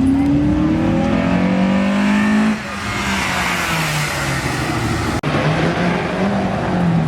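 A car's engine and exhaust accelerating hard, the note rising steadily for about two and a half seconds, then dropping abruptly as the throttle is let off or the gear changes, and running on at a lower, wavering pitch.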